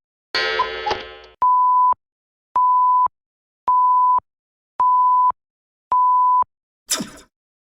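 Five identical electronic beeps, a steady pure tone each about half a second long, coming about once a second. They are preceded by a short bright sound with many tones and followed by a brief noisy swoosh near the end.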